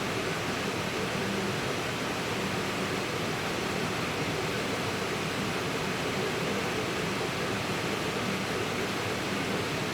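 Electric fan running steadily, a constant rush of blown air with a faint hum underneath.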